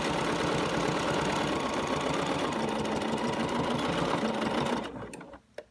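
BERNINA 770 sewing machine stitching steadily at speed, then stopping about five seconds in.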